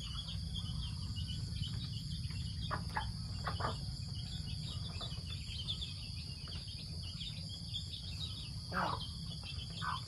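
Steady high-pitched insect chirring throughout, with a few short calls from the hen and ducklings, the loudest about nine seconds in, over a low steady rumble.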